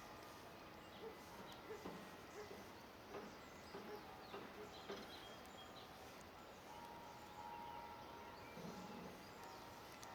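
Quiet outdoor ambience with a few faint light knocks and clicks, and a short faint steady tone about seven seconds in.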